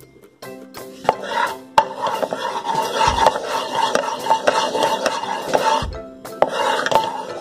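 Wooden spatula scraping and stirring around a non-stick wok, spreading heating lard, with a short pause about six seconds in. Light background music plays underneath.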